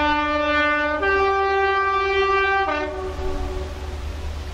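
Class 20 diesel locomotive's two-tone horn sounding: a low note, a step up to the higher note about a second in, then a brief return to the low note that dies away before the end, over a steady low rumble.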